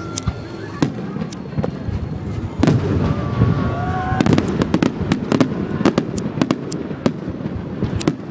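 Fireworks going off: scattered sharp bangs and crackles, turning into a rapid string of pops about halfway through.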